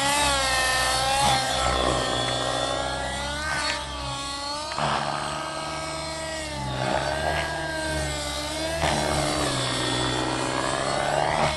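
Miniature Aircraft Fury 55 RC helicopter's OS 50 two-stroke glow (nitro) engine running hard through aerobatic manoeuvres, its pitch repeatedly rising and falling.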